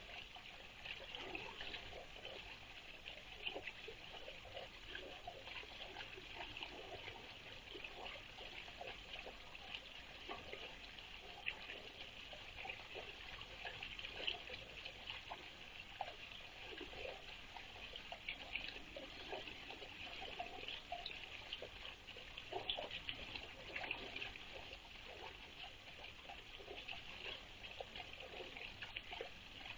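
Water trickling and dribbling steadily into a small garden pond, under a constant high hiss.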